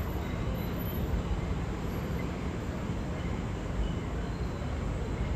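Steady low rumble of a subway train approaching in the distance along elevated tracks.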